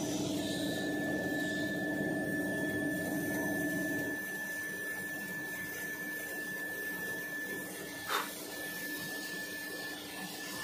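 Tissue-paper converting machinery running steadily: a continuous hum with a steady high whine. The lower hum drops away about four seconds in, and a short sharp sound comes near the end.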